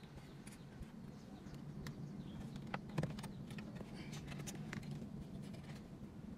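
Scattered clicks and light knocks of plastic and metal as the factory head unit is worked loose and pulled out of the dashboard, with one sharper knock about three seconds in, over a low steady hum.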